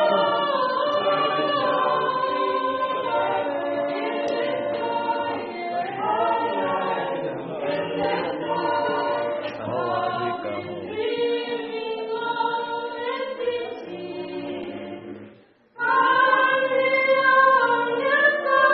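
A vocal quartet singing gospel a cappella in close harmony. The sound cuts out for a moment near the end, and then the singing comes back in.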